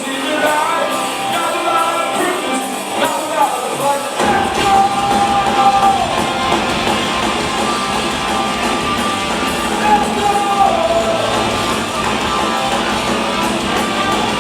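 Punk rock band playing live in a large hall, with sung vocals and electric guitar. About four seconds in, the full band comes in and the sound fills out underneath.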